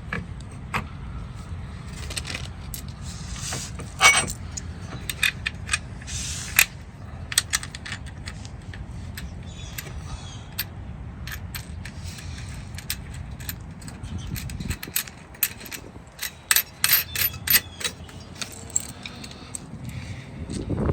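Metal tools and hardware clinking and tapping in a quick, irregular series, over a low steady rumble that cuts off about fifteen seconds in.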